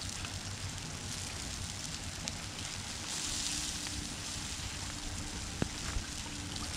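Small cooking fire under a grill crackling and hissing steadily, with one sharp click about five and a half seconds in.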